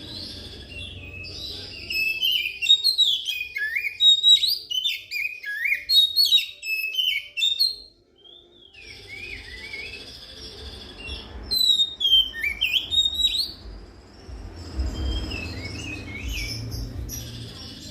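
Oriental magpie-robin singing: a rich, varied song of quick whistles, slurred glides and chirps, with a short break about eight seconds in.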